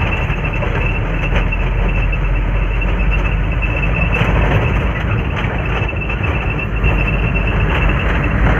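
Loud, steady vehicle running noise on a road, with low rumble and a thin high whine.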